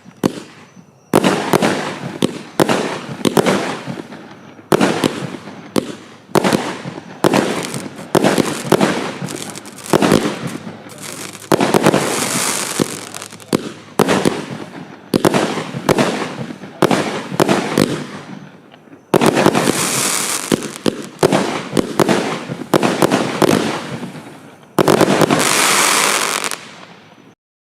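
Lesli 'Enemy of the State' 31-shot fan firework battery firing: a rapid series of sharp shots and aerial bursts, each trailing into crackle. Denser stretches of hissing crackle come near the middle and toward the end, and the sound stops suddenly just before the end.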